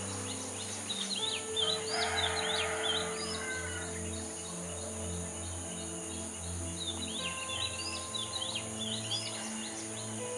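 Yellow-billed babblers calling: quick squeaky, chattering notes in two bouts, one in the first few seconds and another from about seven seconds in, over background music.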